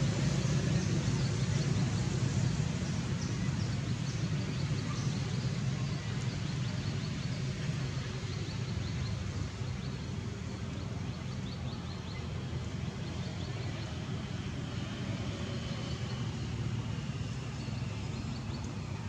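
Steady low outdoor background rumble, a little louder in the first few seconds and then easing slightly, with faint high ticks over it.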